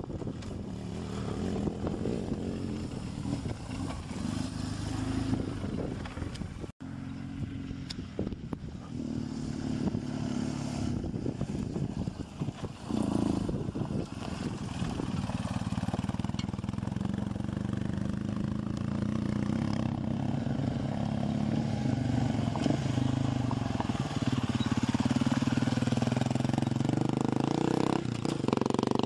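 Large adventure-touring motorcycle engines running as the bikes ride a gravel mountain track, the engine note rising and falling with the throttle. The sound breaks off for an instant about seven seconds in and is loudest in the last few seconds.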